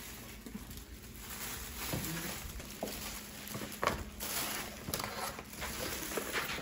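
Crinkly metallic foil and tissue gift wrapping rustling and crackling as it is pulled out of a paper gift bag and handled, with scattered small clicks.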